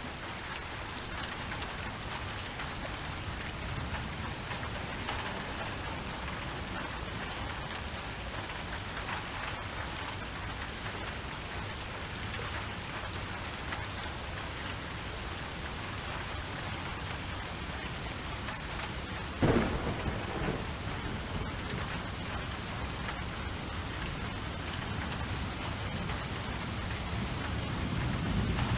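Steady rain falling, with a sudden sharp thunderclap about two-thirds of the way through that trails off into rumbling, and a low rumble building again near the end.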